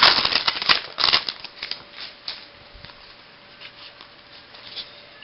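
Trading cards being handled as a fresh pack is opened: wrapper rustling and cards shuffling, busiest for about the first second, then sparse soft clicks as the cards are flipped through one by one.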